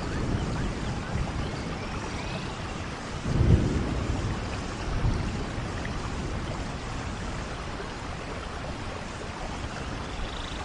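Steady rain falling through a forest, with a brief low rumble about three and a half seconds in and a smaller one a second and a half later.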